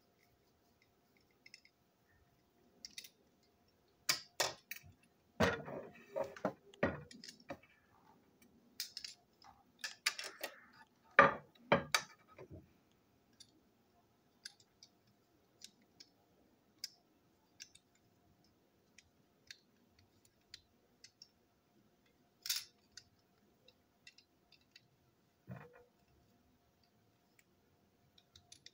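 Hard plastic parts of a toy locomotive being handled and taken apart: a flurry of sharp clicks and clatters in the first half, then scattered single ticks, a sharp tap and a duller knock.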